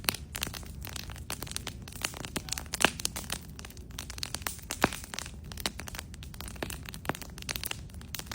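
Wood bonfire crackling, with irregular pops and snaps over a low steady rumble; two pops, a little under three seconds in and about five seconds in, are louder than the rest.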